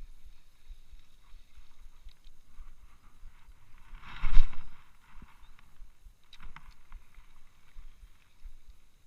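A single splash on the water surface about four seconds in, followed a couple of seconds later by a few faint clicks, with light wind buffeting the microphone.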